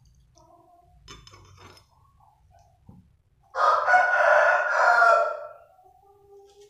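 A rooster crowing once, a loud call of about two seconds starting about three and a half seconds in. Before it, a few faint clinks of a glass on a saucer.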